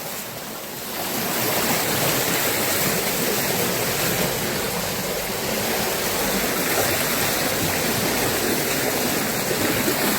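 Floodwater rushing in a steady, even noise that grows louder about a second in and then holds.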